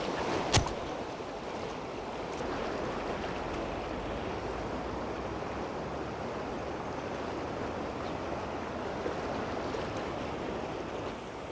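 Fast river current rushing steadily over rocks and riffles, with one sharp click about half a second in.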